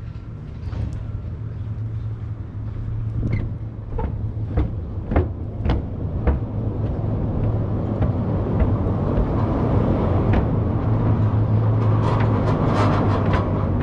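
A car driving across the bridge's open steel-grate deck, its tyres making a hum that builds and is loudest near the end as it passes. A run of sharp ticks, about one every half second, sounds in the middle.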